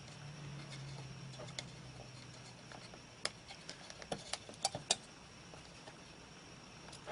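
Faint light clicks and taps of the removed laptop RAM sticks (SODIMM modules) being handled, about a dozen between three and five seconds in. A faint low hum runs through the first three seconds.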